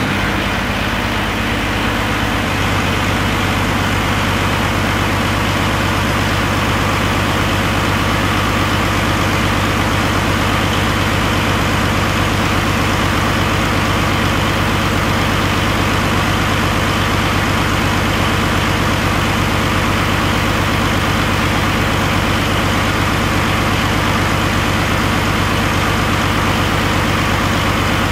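2013 Paccar MX13 12.9-litre inline-six diesel engine running at idle just after being started, settling about two seconds in and then idling steadily.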